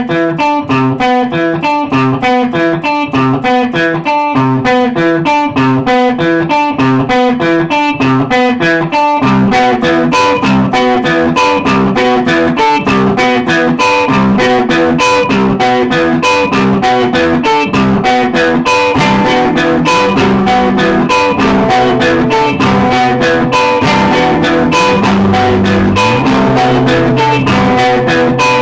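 Instrumental guitar music: quick picked notes, joined about nine seconds in by a fuller accompaniment with a bass line.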